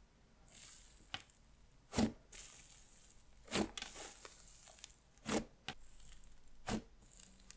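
Dry icy slime being squeezed and stretched by hand: a fine sizzling crackle broken by several sharp pops, about one every second or two.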